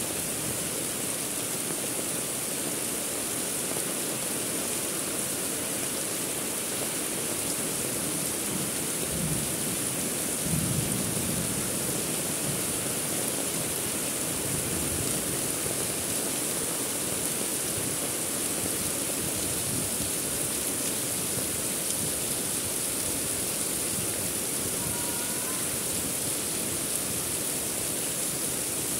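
Heavy rain falling steadily, a dense even hiss, with a brief low rumble about ten and a half seconds in.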